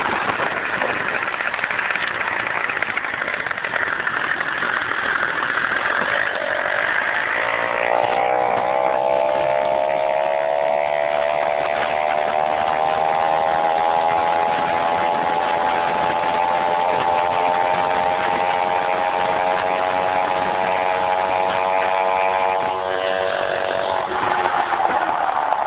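Peugeot 103 MVL moped's 50 cc two-stroke single-cylinder engine running under way. Its pitch climbs about eight seconds in, holds steady, and falls near the end.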